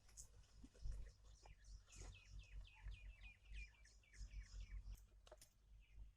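Faint bird call: a quick run of about a dozen short, falling chirps midway through, over a low rumble.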